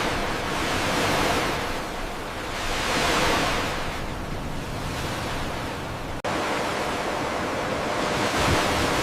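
Sea waves washing, swelling and fading every couple of seconds, with a brief cut about six seconds in.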